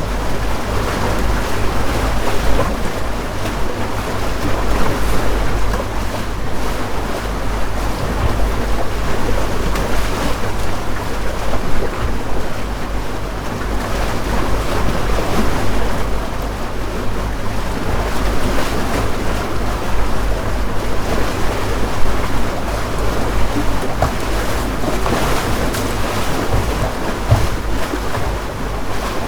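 Houseboat under way on a lake: its motor makes a steady low drone beneath continuous splashing and lapping of water against the hull, with some wind buffeting the microphone.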